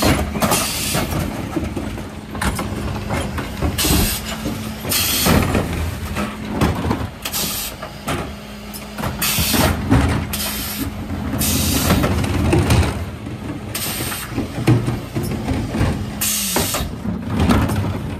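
Mercedes Econic refuse truck with a Faun Variopress body running with a steady hum while its Zoeller lifters tip wheelie bins into the hopper. Short clatters and hisses come every two seconds or so.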